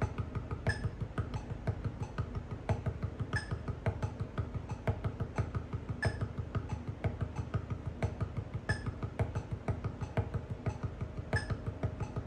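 Drumsticks striking a Reflexx practice pad in a steady stream of sixteenth notes at 90 beats a minute, about six strokes a second, in single-handed groups of three and four with accented strokes. A brighter high click recurs on about every beat.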